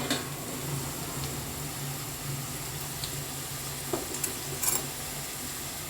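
Vegetables sizzling steadily in hot oil in a kadai, with a few light clicks of a utensil against the pan about four to five seconds in.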